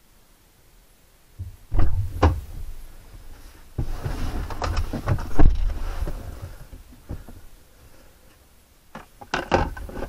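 Clicks, knocks and rustling of plastic console trim and wiring being handled inside a pickup's opened centre console. They come in two bursts, about one and a half and four seconds in, with a few sharp clicks near the end.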